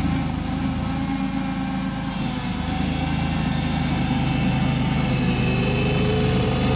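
Small Kawasaki engine of a home-made wheel loader running steadily as the machine pushes snow with its bucket, growing louder about halfway through, with a faint rising whine near the end.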